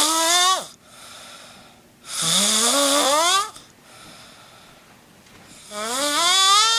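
Loud snoring: three long, hissy snores with a rising whistling tone, one ending right at the start, one a couple of seconds in and one near the end, with quieter breaths between.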